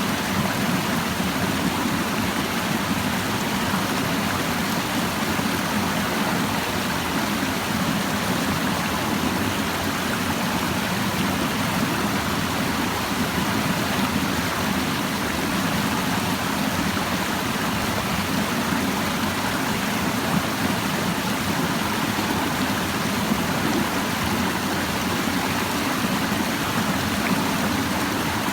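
Clear mountain stream babbling over rocks, a steady rushing and burbling of flowing water.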